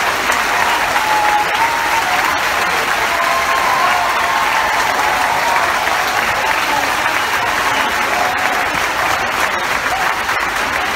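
Large audience applauding steadily, a dense continuous clapping that holds at the same level throughout.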